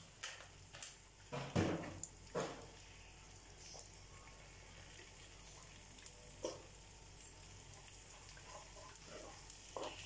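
Vadagam seasoning frying in hot oil in a clay pot: a faint steady sizzle, with a few short louder sounds in the first couple of seconds.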